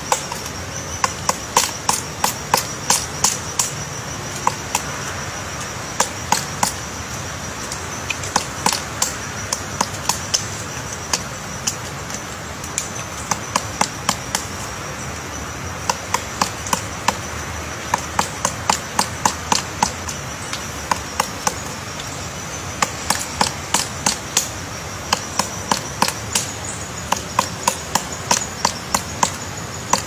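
Pileated woodpecker chiselling into a tree trunk: runs of heavy wooden strikes from its bill, about three a second, broken by short pauses, as it digs out a large cavity and throws off wood chips.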